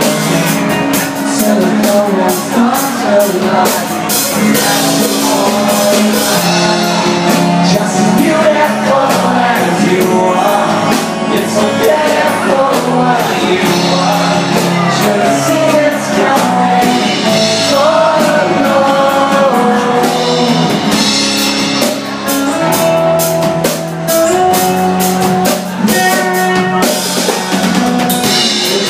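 Live band playing an acoustic rock song: acoustic guitar, bass guitar and drums, with a male singer's vocal over them and cymbals ticking along.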